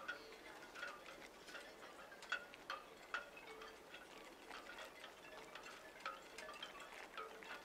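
Faint, irregular tinkling chime notes, a few each second.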